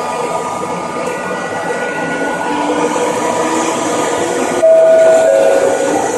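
Nagoya Municipal Subway 3000 series train noise, steady, with several faint steady tones running through it. About four and a half seconds in, a loud two-note tone sounds for about a second, a higher note stepping down to a lower one.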